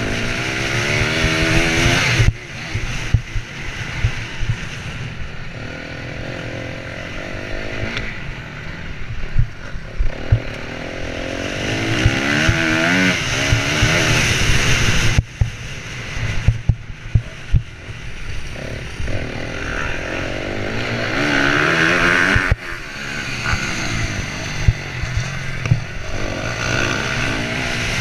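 Honda CRF250R's four-stroke single-cylinder engine racing hard, its pitch climbing repeatedly under throttle and dropping off sharply each time the throttle is chopped. Wind buffets the microphone throughout.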